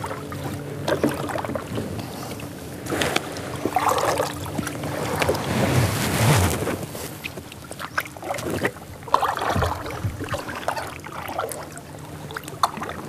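Kayak paddles dipping and pulling through the water in repeated strokes, a swishing splash every second or two.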